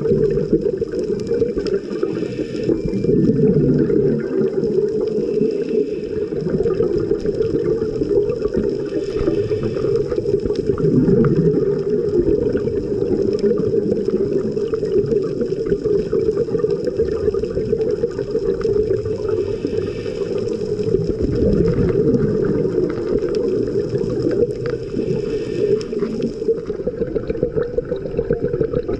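Underwater recording through a dive camera's housing: the muffled rumble and gurgle of a scuba diver's exhaled regulator bubbles and moving water, swelling in surges a few times over a steady low wash.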